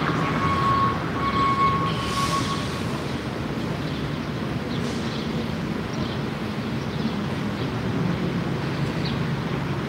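Steady low rumble of vehicle noise, with a faint high tone over the first few seconds.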